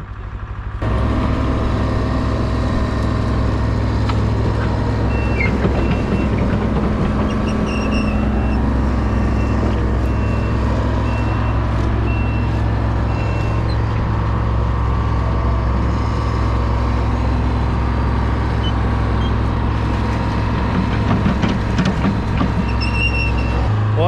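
Engine of a heavy machine running steadily. For several seconds in the middle a reversing alarm sounds in short repeated beeps.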